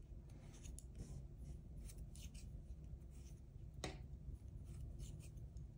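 Wooden knitting needles and yarn worked by hand as knit stitches are made: faint rubbing and scraping of yarn on the needles with light clicks of the needle tips, one sharper click about four seconds in.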